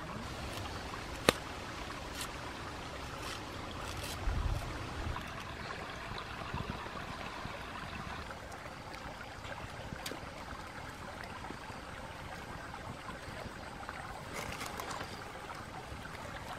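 Fish soup boiling hard in a clay pot over a wood fire: a steady bubbling hiss, with a few sharp pops, the loudest about a second in.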